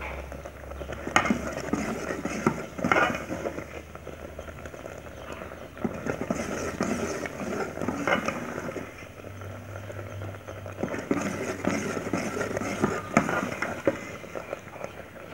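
Metal ladle stirring thick, cooked-down orange jam in a metal pot, scraping and knocking against the pot every second or two.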